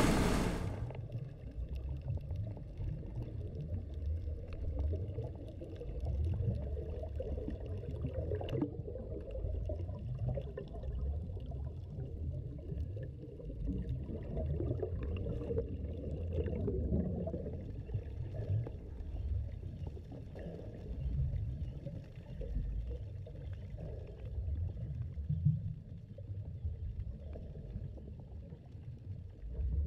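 A diver splashes into the sea right at the start. What follows is underwater sound: a muffled low rumble with gurgling from the exhaled air bubbles of a hookah diver breathing from a surface air hose.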